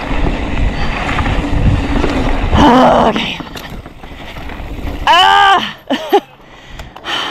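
Mountain bike rolling fast down a dirt singletrack: tyre noise and wind rush on the helmet camera, loudest over the first three seconds. About five seconds in there is a loud pitched sound that rises and falls, followed by two short ones.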